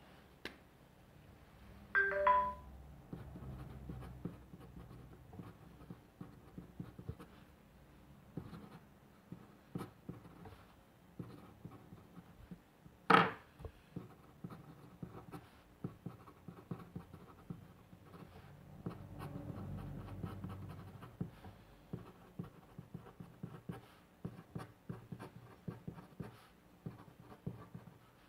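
A pen scratching on paper in quick short strokes as characters are written by hand. A brief pitched sound comes about two seconds in, and a single sharp click about halfway through.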